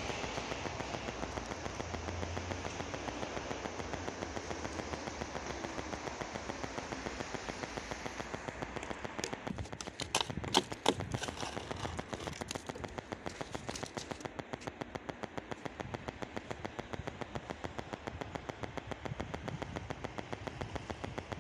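Footsteps crunching through packed snow in a steady rhythm, with a few sharp clicks about ten seconds in.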